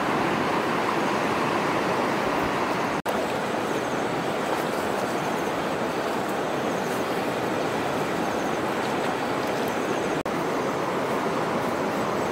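Shallow muddy stream running, a steady rushing of water that drops out for an instant twice.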